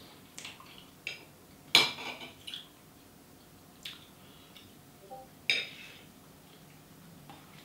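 Metal fork clinking and scraping against a ceramic bowl while eating, in about six short, separate clinks; the loudest comes about two seconds in and another strong one about five and a half seconds in.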